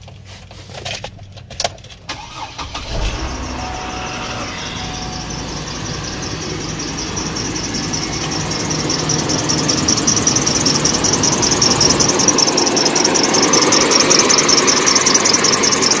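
Hummer H3's 3.5-litre inline-five engine started after a few clicks, then idling with a rapid, pulsing high squeal from the serpentine drive belt, growing louder toward the end. The squeal is from a worn belt, not a pulley, as a water test on the belt later shows.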